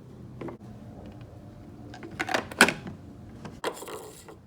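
Hard parts or fittings being handled: a few sharp clicks and knocks, the loudest pair about halfway through, then a short rustle near the end.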